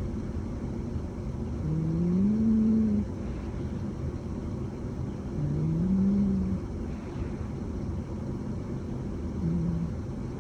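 A sleeping mixed-breed domestic cat snoring: three pitched snores, each rising in pitch, about every four seconds, the last one short near the end, over a steady low background noise.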